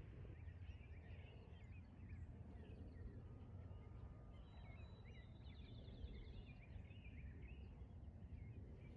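Faint birdsong in open country: many short chirps and whistles, with a fast trill about five and a half seconds in, over a low wind rumble.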